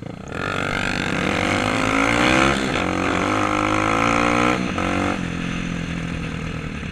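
Kawasaki dirt bike engine heard from on board, revving up under hard acceleration with two upshifts, about two and a half and five seconds in, each dropping the pitch before it climbs again, then running at a steadier pitch near the end.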